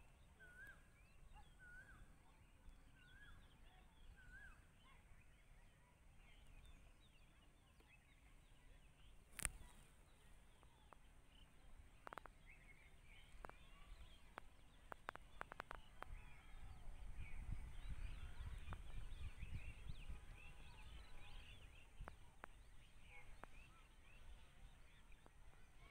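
Faint outdoor ambience of birdsong. A short call repeats about once a second in the first few seconds, and scattered small chirps run throughout. There is one sharp click near the middle, a few lighter clicks after it, and a low rumble for several seconds in the second half.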